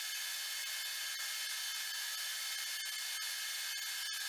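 Metal lathe taking a power-fed turning cut on a metal bar: a steady cutting hiss with several high steady tones, and a few sharp ticks as the chips break off the chip-breaker tool.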